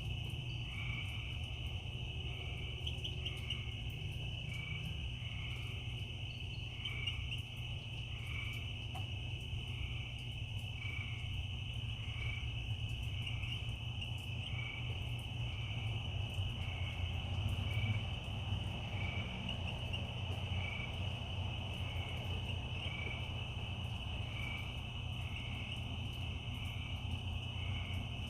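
Night chorus of crickets and frogs: a steady high-pitched trill, with a call repeating about once a second, over a low rumble.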